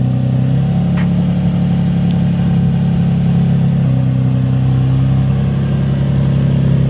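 A loud, steady motor hum holding a constant pitch, its tone shifting slightly twice.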